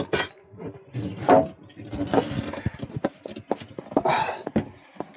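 Irregular knocks, clicks and scrapes of an ECA Proteus Premix combi boiler being handled and lifted onto its wall bracket, with rustling stretches about a second in and about four seconds in.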